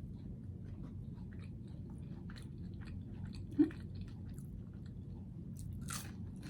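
Close-up chewing of a mouthful of green beans: small irregular wet clicks and crunches, with a brief low hum about three and a half seconds in.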